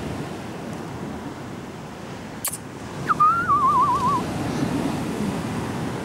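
A person whistling briefly about three seconds in: one short whistle that rises, then wobbles quickly up and down. Under it runs the steady wash of sea surf on a pebble beach, with a sharp click just before the whistle.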